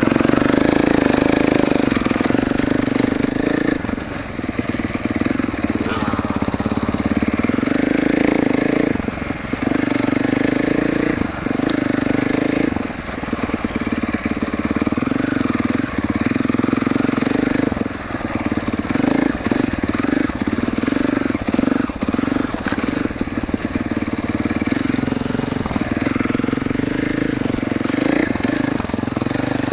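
2021 Gas Gas MC450F's single-cylinder four-stroke engine running as the dirt bike is ridden, heard on board. The engine note drops briefly several times as the throttle is eased off, then picks up again.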